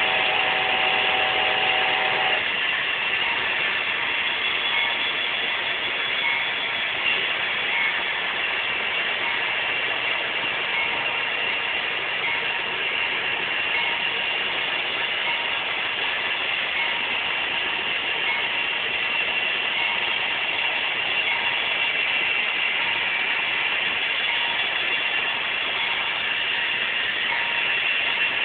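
Model train running on the layout track: a steady mechanical whir and clatter from the small locomotive's motor and its wheels on the rails. A short steady tone sounds for about the first two seconds.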